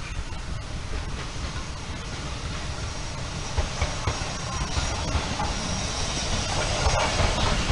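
Hunslet Austerity 0-6-0 saddle-tank steam locomotive drawing a train of coaches past: a noisy hiss and rumble growing louder as it comes near, with a few short knocks.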